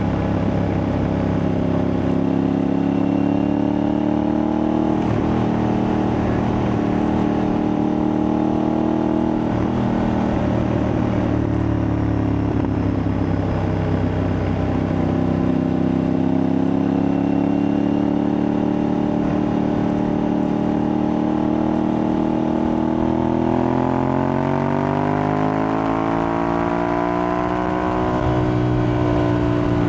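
Aprilia Tuareg 660's parallel-twin engine running under way through an aftermarket Akrapovic-replica exhaust. The engine note drifts gently up and down, then climbs steadily in revs for about four seconds near the end before dropping back.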